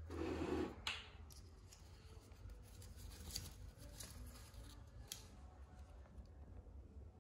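Faint handling noises: a brief rustle at the start, a sharp click just under a second in, then scattered light clicks and taps.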